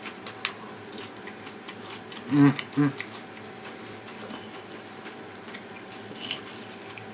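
A person eating: faint ticks and clicks of chewing and eating, with two short closed-mouth 'mm-mm' hums about two and a half seconds in.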